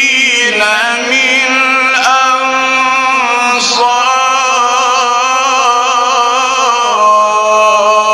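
A man reciting the Quran in the melodic mujawwad style, holding long ornamented notes with a quavering pitch and stepping to a new note about seven seconds in.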